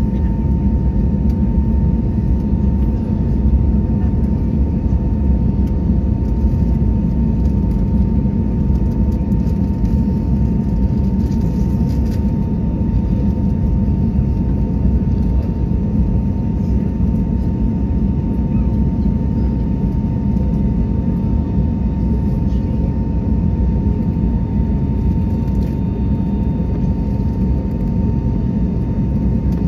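Airbus A321neo's Pratt & Whitney geared turbofan engines heard from inside the cabin at climb power: a steady, loud low roar with a thin steady tone running above it.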